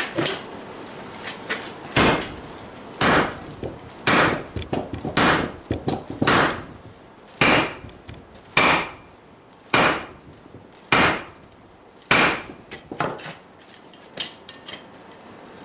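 A sledgehammer striking hot steel on a Vulcan 90-pound anvil: about eleven heavy blows, roughly one a second, each with a short metallic ring, followed by a few lighter taps near the end.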